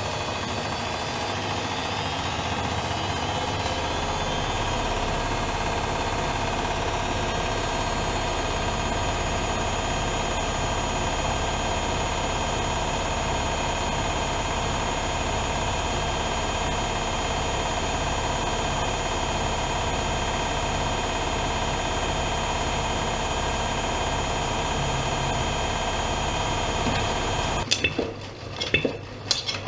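Privileg Dynamic 7420 front-loading washing machine running at a steady speed, its motor giving a steady whine over a low hum that rises slightly a few seconds in. Near the end the sound cuts off suddenly and a few sharp clicks and clatters follow.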